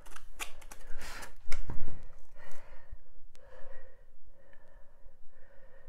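Knocks and clicks as a handheld hot-wire foam cutter is picked up and set against a block of Styrodur foam, the loudest about one and a half seconds in. After that comes a fainter steady sound while its heated wire cuts through the foam.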